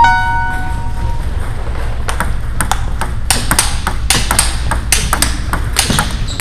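A bell-like ping rings out at the start and fades over about a second. Then comes a fast table tennis rally: the celluloid ball cracks sharply off the rubbers of the paddles and off the table, several hits a second, as forehand loops meet blocks.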